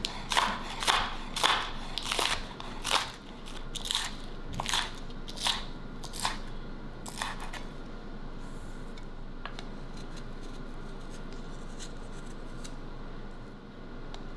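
Crisp raw vegetables being cut one stroke at a time, each cut a sharp crunch, roughly one every three-quarters of a second. The cuts stop a little past halfway, leaving a few faint ticks over a steady low hum.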